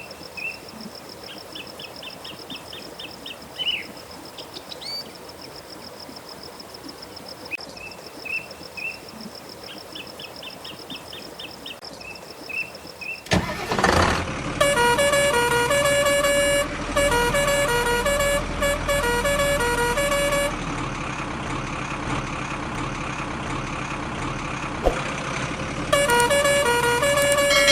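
Vehicle horn sound effects. For the first half a faint, steady high beeping runs with short trills of chirping toots. About halfway through a sudden loud burst comes, then a loud multi-note horn tune that changes pitch in steps, breaks off a few times and starts up again.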